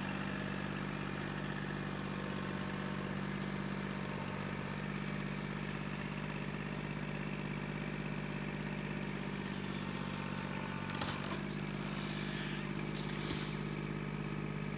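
An engine running steadily at a constant speed, with two brief rustling or cracking noises about eleven and thirteen seconds in.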